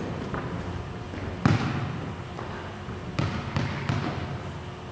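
Volleyball thumps echoing in a gymnasium: one sharp hit about a second and a half in, then three lighter ones between about three and four seconds in, over the hall's background hubbub.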